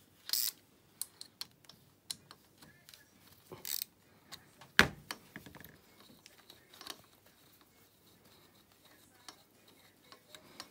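Scattered small metallic clicks and brief scrapes of a hand tool undoing the cylinder-head bolts on a 250 cc ATV engine, with one sharp metal knock about five seconds in.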